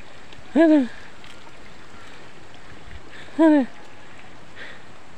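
A man's short voiced exhalations, out of breath from climbing a steep path: two brief huffs rising and falling in pitch, one near the start and one past the middle, over a steady background hiss.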